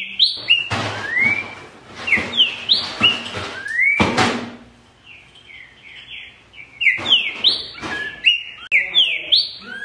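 A caged green-winged saltator (trinca-ferro) singing loud whistled phrases of two to four mostly rising notes, with a pause of about two seconds after the middle. A short noisy burst comes about four seconds in.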